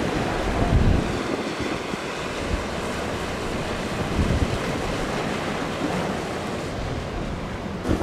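Ocean surf breaking and rushing, with gusty wind buffeting the microphone in uneven low surges.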